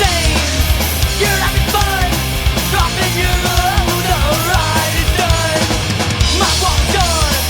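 Loud, dense rock music from a band's studio recording.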